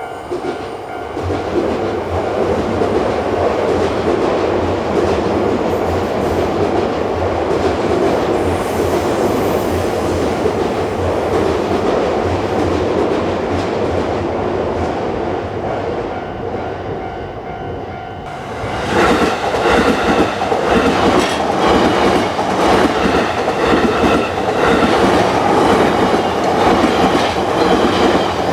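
Electric commuter trains on the JR line running through a level crossing, wheels clattering over the rail joints. About eighteen seconds in, the sound briefly dips, then becomes louder and busier with rapid clacking.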